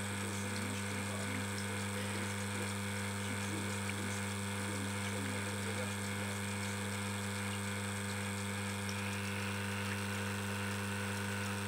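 Reverse-osmosis system's booster pump running steadily with a constant hum while the system runs its flush cycle.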